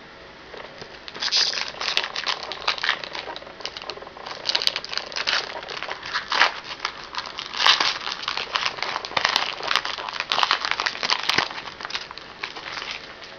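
A hockey trading-card pack's wrapper crinkling and being torn open by hand, with irregular crackles throughout.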